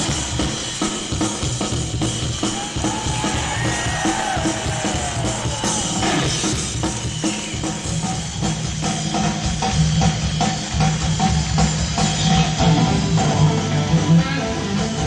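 Live rock band playing with the drum kit out in front: steady drum strikes over a bass line that grows stronger in the second half, with gliding notes near the start.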